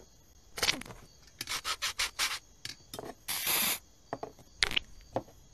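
Cartoon foley of a mug of hot cocoa being topped: a quick string of short rasps as sprinkles are shaken on, then a half-second spray of aerosol whipped cream a little over three seconds in, and a few small ticks near the end.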